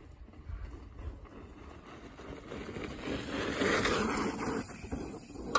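Mountain bike tyres rolling over a loose dirt trail, with wind rumbling on the microphone; the rolling noise swells about halfway through and eases near the end, where a single sharp click sounds.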